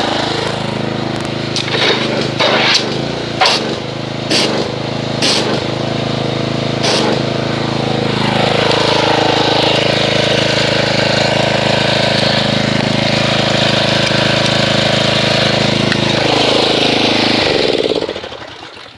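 A pressure washer runs steadily, spraying foam through a foam cannon, with a hiss over the motor's hum and a few sharp clicks in the first seven seconds. Near the end the motor winds down and stops.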